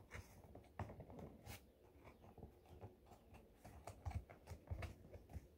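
Faint handling sounds of a cardboard toilet-paper roll covered in construction paper being pinched and pressed at the top by fingers. Scattered small clicks and soft paper rustles.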